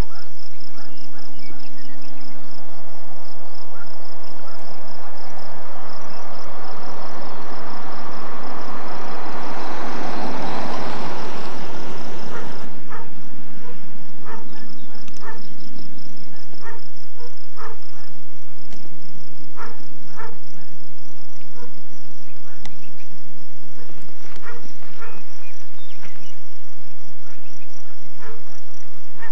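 Insects chirping in a steady, high, pulsing trill. A rushing noise swells over several seconds and cuts off suddenly a little before halfway, followed by scattered short clicks.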